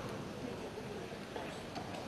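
Steady background noise of a large sports hall, with no distinct footfall or sword sound standing out.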